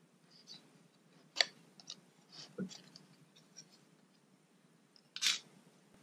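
Faint clicks and taps of a black plastic piece being worked loose and lifted out of a Mac mini's case. There is a sharp click about a second and a half in, a soft knock near the middle, and a short scraping rustle near the end.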